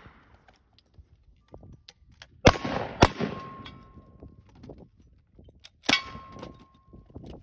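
Three gunshots, two close together about two and a half seconds in and one near six seconds from a lever-action rifle. A metallic ring follows the second and third shots, the clang of steel targets being hit.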